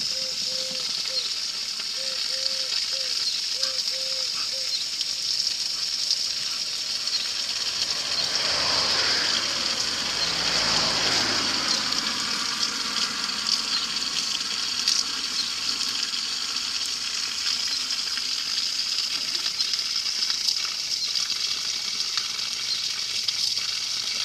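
Garden hose jet spraying in a steady hiss, the water splashing onto the grass, swelling louder for a few seconds near the middle.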